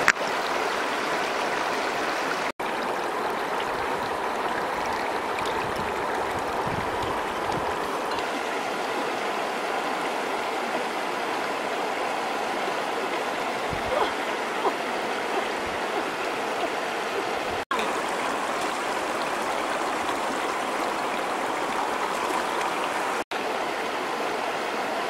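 Shallow river rushing steadily over rocks, a continuous stream noise that drops out for an instant three times.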